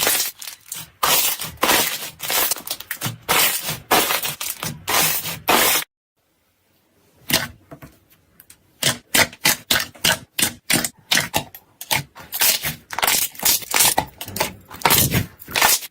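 Slime being squeezed and pressed by hand, a fast run of sharp crackles and pops, broken by a short silence about six seconds in before it starts again.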